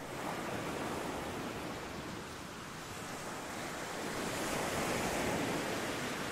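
Steady rushing noise of surf and wind on a sandy beach, swelling slightly about halfway through.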